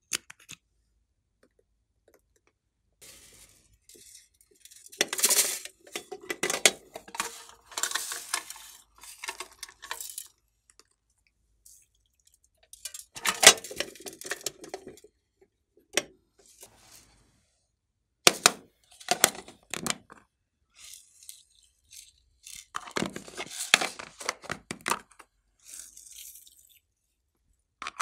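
Makeup containers and applicators handled over a glass dish of slime: clinks, clicks and taps of plastic and glass, with short scraping sounds, coming in clusters with quiet gaps between.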